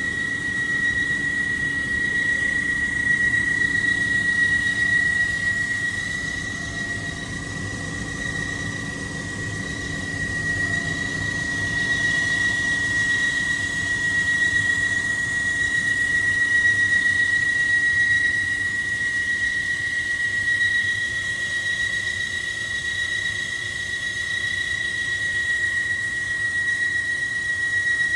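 Exhaust fan running steadily: a constant high-pitched whine over a low hum and an even rush of moving air.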